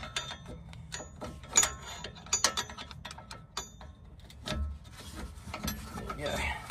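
Sharp metallic clinks and ticks, a dozen or more at uneven spacing, some ringing briefly: a hand tool working drum-brake hardware as the handbrake lever, springs and pin are pulled off a Holden VS Commodore's rear drum-brake backing plate.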